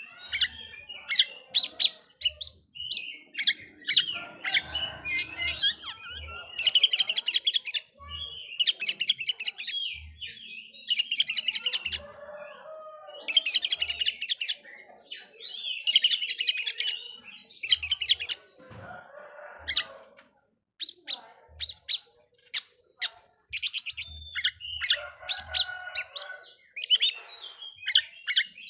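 Oriental magpie-robin (kacer) singing: repeated bursts of rapid, high notes about a second long with short pauses between them, and soft low thumps here and there.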